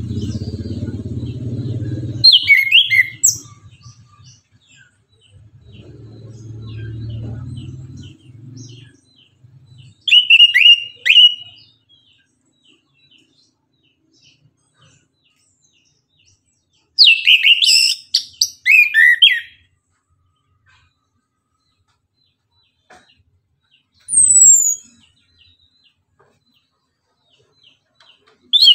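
Chestnut-capped thrush (anis kembang) singing: three short bursts of rich, warbling whistled phrases a few seconds apart, then a single high falling whistle, with another phrase starting at the very end. A low background murmur sits under the first phrase and again before the second.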